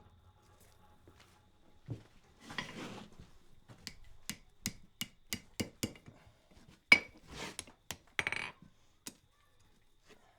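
Hammer tapping a small steel hook against the anvil: about a dozen sharp, ringing metal strikes at roughly three a second starting about four seconds in, one blow near seven seconds louder than the rest, with a few short scraping sounds in between.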